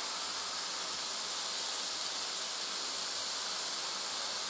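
Spaghetti squash strands frying in a pan: a steady sizzling hiss.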